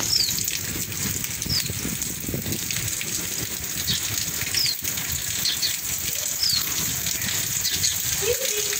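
Steady rain falling, a dense even hiss. A bird gives short, high, falling chirps every second or two over it.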